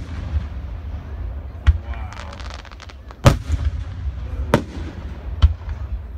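Aerial fireworks shells bursting: three sharp bangs within a few seconds, the loudest about three seconds in, with a short crackle after the first, over a steady low rumble.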